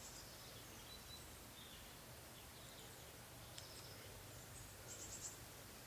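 Faint garden ambience, with birds chirping briefly a few times.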